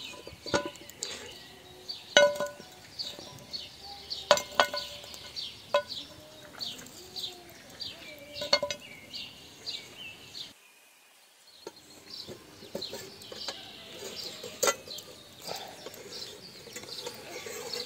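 Sharp metal clanks and clinks from a large metal pan lid and a metal spatula being handled over a wood fire as embers are heaped onto the lid, about half a dozen ringing strikes. Birds chirp throughout.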